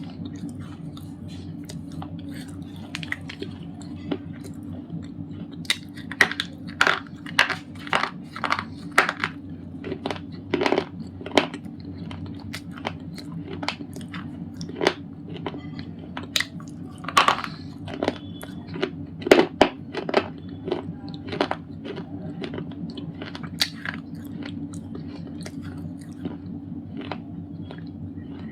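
Thick white slate pencil being bitten and chewed: sharp, brittle crunches, one after another and thickest through the middle stretch, sparser at the start and end. A steady low hum runs underneath.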